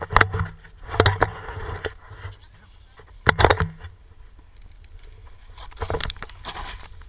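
Skis scraping and hissing through snow in a run of turns, with wind buffeting the camera microphone. It comes in about four louder surges over a steady rumble.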